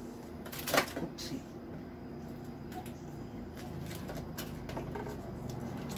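Containers being handled and set into a refrigerator's door shelves: one sharp knock about a second in, then a few lighter clicks and knocks.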